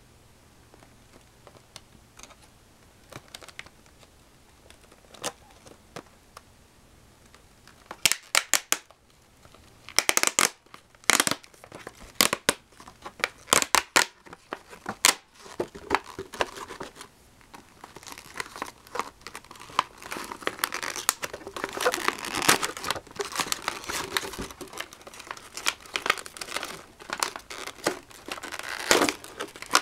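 Clear plastic blister packaging being handled and pulled open. A few faint clicks at first, then a run of sharp plastic snaps and cracks, followed by continuous crinkling and rustling through the second half.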